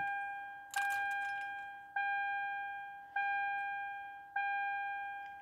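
Dashboard warning chime of a 2011 Toyota Camry LE: a single bell-like ding repeating about every 1.2 seconds, each one fading before the next. The ignition is switched on and the engine is not yet running.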